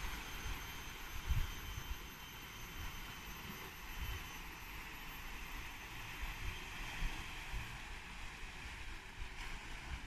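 Steady outdoor rushing noise with irregular low gusts of wind on the microphone, and a faint high steady tone that fades out about halfway through.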